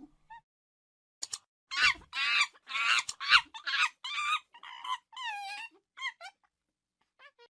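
Monkey calling: after a short pause, a rapid string of high-pitched squeaky calls, some with a fast wavering pitch, then a few faint chirps near the end.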